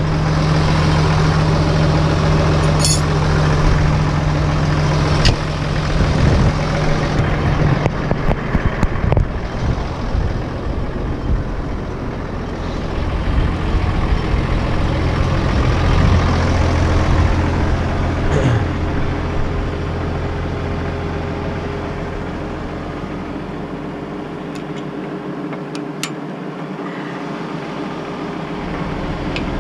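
Case IH Puma CVX tractor's diesel engine idling steadily, with a few sharp clicks and knocks of handling among the machinery. The low engine hum drops away for a few seconds near the end.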